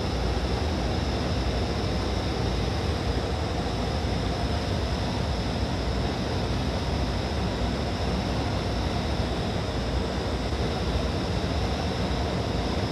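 Steady drone of a biplane transport aircraft's engine and rushing air, heard from inside the plane in level flight.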